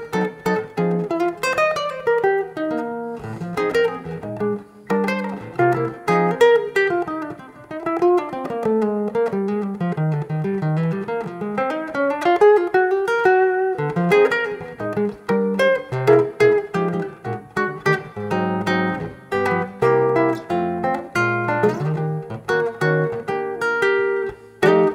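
Solo guitar playing an instrumental break in a samba tune, mixing plucked chords and single-note melody. In the middle a melodic line runs down and then back up again.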